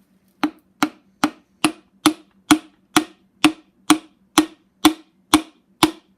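Light, evenly spaced taps, about two a second and slowing slightly, driving a piston down through a ring compressor past its rings into the cylinder bore of a BMW N54 engine.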